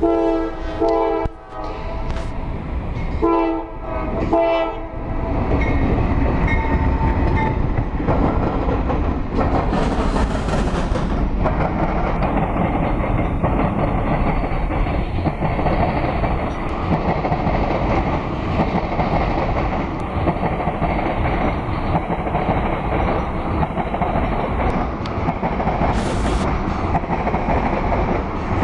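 Freight train's diesel locomotive horn sounds twice in the first five seconds as the train approaches. Then the lead locomotives pass close by, followed by loaded oil tank cars rolling over the rails with a steady rumble and clickety-clack.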